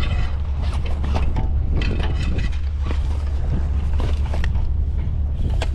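Strong wind rumbling on the microphone, with scattered mechanical clicks and rattles over it.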